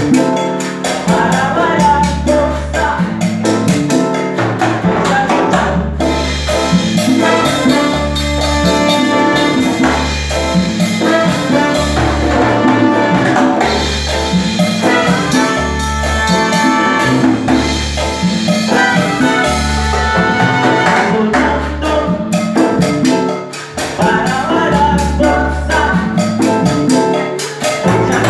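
Live salsa band playing: congas, drum kit, electric bass and keyboard under a brass section of trumpet and trombone, with a repeating bass line. The horns play held lines through the middle of the passage.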